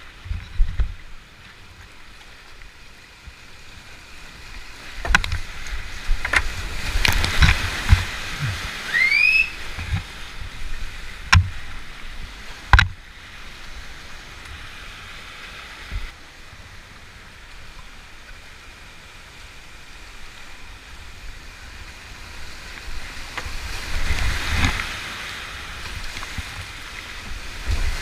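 Whitewater rushing down a steep, rocky creek, heard from a kayak running the rapid. Several sharp knocks come from the kayak and paddle between about five and thirteen seconds in, with a short rising whistle near nine seconds. Near the end, water crashes over the bow as it drops through a ledge.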